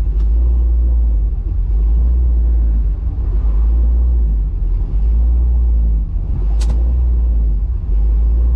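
1967 Chevy Nova's engine, fed by a FiTech 600 hp fuel-injection system, running with a deep steady rumble while the car is driven, with small dips in level. A brief sharp click or squeak about six and a half seconds in.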